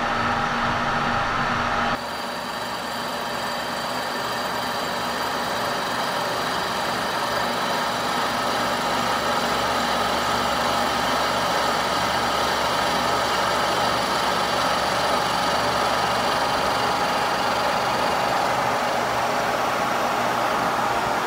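Kearney & Trecker horizontal milling machine running under power feed, its helical roughing mill slab-milling a cast iron crosshead: a steady drone of spindle and gearing with a continuous cutting noise. The sound shifts abruptly about two seconds in.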